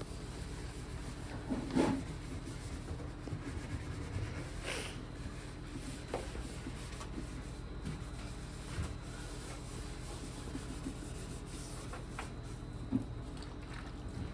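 Rubbing and wiping noises with a few light knocks, about 2 s in and near the end, over a steady low hum.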